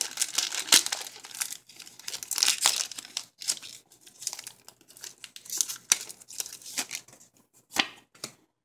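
Foil wrapper of a Pokémon trading card booster pack being torn open and crinkled by hand, with a sharp rip just under a second in. The crinkling is dense for the first few seconds, then thins to scattered crackles.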